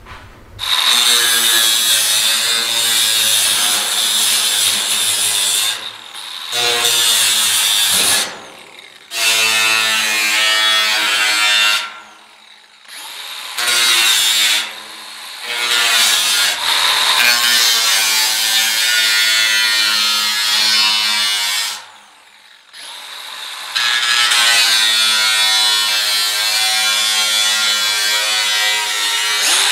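Cordless angle grinder cutting along the edge of a steel van roof panel, a loud screeching whine, in several runs broken by short pauses where the disc stops.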